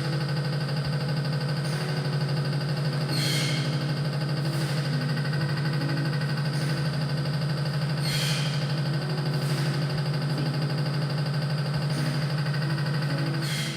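A Hartridge common-rail injector test bench running its automatic test sequence on a Bosch CRIN 4.2 injector. It gives a steady, loud, low hum with steady whining tones above it, broken by short hisses at uneven intervals of one to four seconds.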